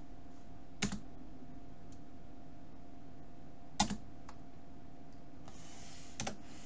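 Three isolated sharp clicks at a computer desk, spaced about two to three seconds apart, from keys or a mouse used to work the software, over a steady low hum of room and equipment noise.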